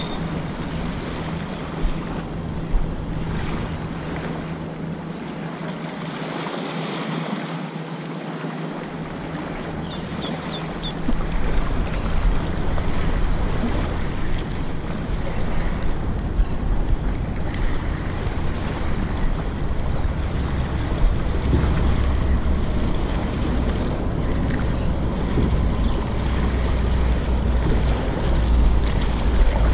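Wind buffeting the microphone over small waves lapping on a sandy shoreline, a steady rush of noise. The low wind rumble grows heavier about a third of the way in.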